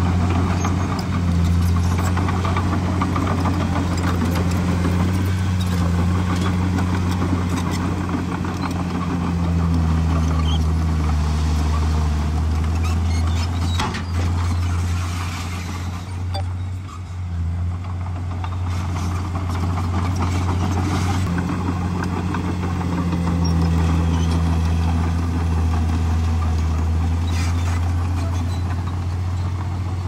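Komatsu D51PX bulldozer's diesel engine running steadily under work, its pitch dropping and coming back up a few times, with a few faint knocks.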